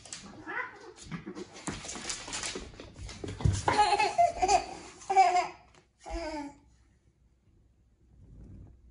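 A young child's voice laughing and babbling, loudest in the middle and stopping about six and a half seconds in. Before it, scuffling and light thumps of cats wrestling on a wooden floor.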